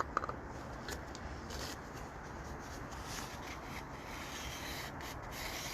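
Fingers rubbing silicone lubricant onto the crankshaft's rear seal surface: a soft, continuous rubbing, with a light click near the start.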